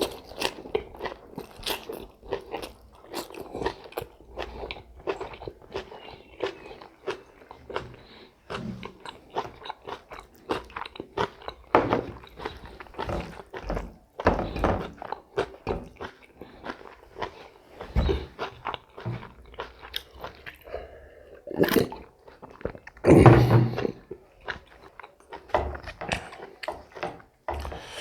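A person chewing and biting food close to the microphone: a steady run of small, irregular wet clicks and crunches, with two louder bursts a little after the middle.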